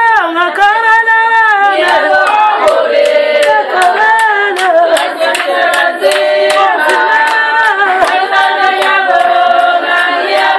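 A group of voices singing a song together, with steady rhythmic hand clapping at about three claps a second.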